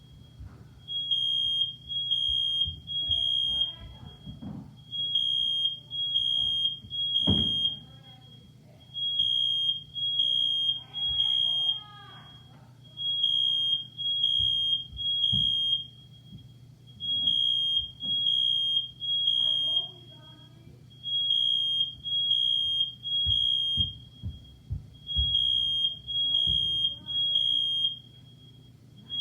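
Household smoke alarm sounding its temporal-three pattern: three loud, high-pitched beeps, then a short pause, repeating about every four seconds. It was set off by smoke from cooking.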